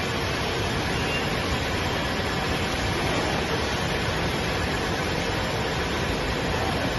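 Steady, even rushing noise of running machinery, with no clear rhythm, knocks or tones.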